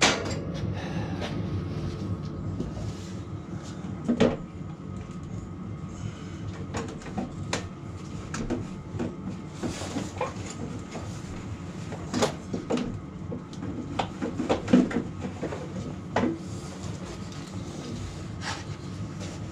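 Scattered metallic clinks and knocks from metal parts and pins being handled and fitted, over the steady hum of a space heater running.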